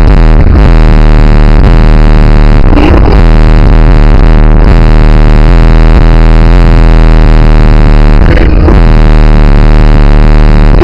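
Four large DC Sound Lab subwoofers in a Jeep's cargo area playing deep bass music at extreme volume. The sound overloads the microphone into a constant distorted, clipped buzz.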